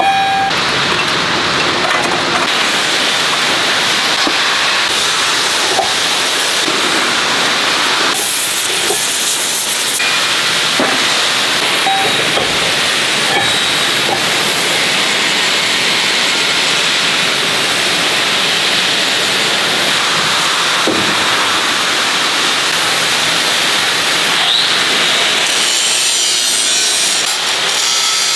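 Angle grinder grinding cast steel bucket-tooth adapters: a steady, loud grinding hiss with a thin high whine running under it.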